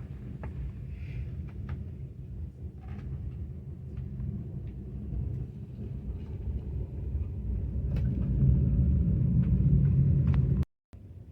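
Low rumble of a moving train heard from inside the carriage, with scattered small clicks and rattles. It grows louder about eight seconds in, then cuts off abruptly just before the end.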